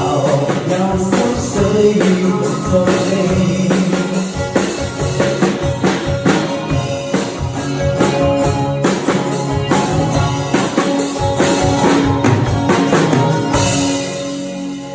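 Band music with a steady drum beat under sustained guitar and keyboard-like notes.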